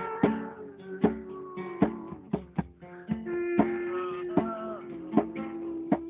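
Music: acoustic guitar with plucked strokes about every half second, under a held, slowly shifting melody line.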